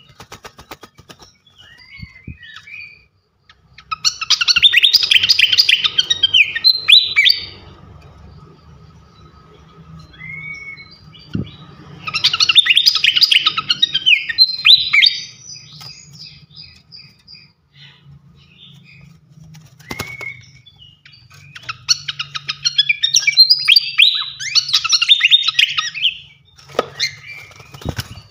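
Srikatan kipas (fantail) songbird singing in three loud, dense bursts of rapid high notes, with short single call notes in the pauses between them.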